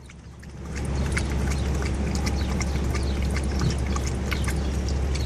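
Boxer dog lapping water from a plastic bag used as a bowl: a quick, irregular run of wet laps, several a second.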